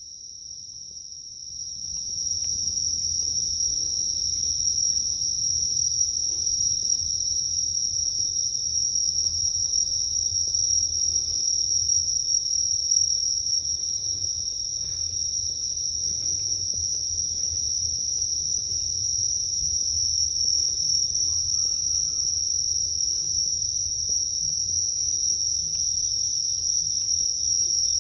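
Chorus of night-singing insects: one continuous high-pitched trill that grows louder over the first two seconds and then holds steady, with a faint low rumble underneath.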